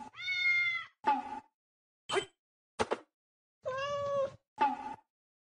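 Domestic cat meowing: two long, arching meows about three seconds apart, with a few short calls in between and after.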